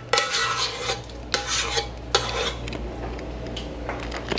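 A kitchen utensil scraping and stirring thick, creamy vegetable pot pie filling against a metal skillet and baking pan, in several scraping strokes over the first two and a half seconds and quieter scrapes after.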